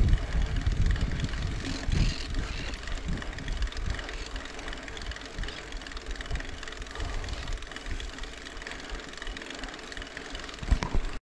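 Low rumble and wind buffeting on the microphone of a moving bike, with irregular dull thumps from the ride; no clear engine note. It cuts out for a moment at the very end.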